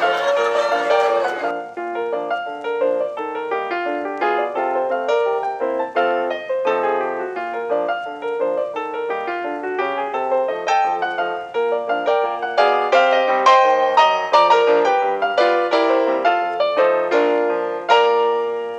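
Background piano music: a lively run of quick notes that grows fuller and louder in the second half. Crowd voices carry over it for the first second or so.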